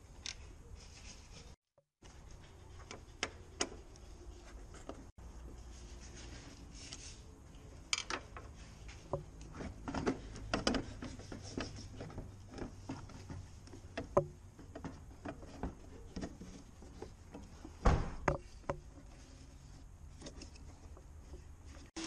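Hard plastic car parts being handled: scattered clicks, knocks and rubbing as a headlight and the plastic brackets around it are worked loose by hand, over a low steady hum. The sharpest knock comes about two thirds of the way through, and the sound cuts out briefly twice near the start.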